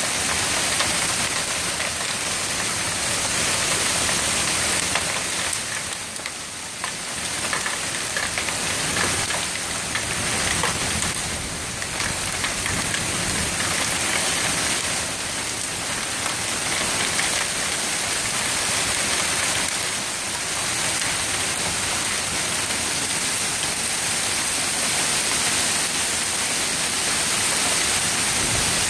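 Heavy hail mixed with rain falling and striking surfaces, a dense, steady clatter and hiss that eases briefly about six seconds in.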